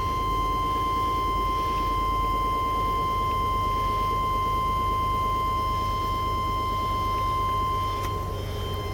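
Chevrolet pickup's engine running steadily at idle, a low even rumble, with a constant high-pitched whine over it.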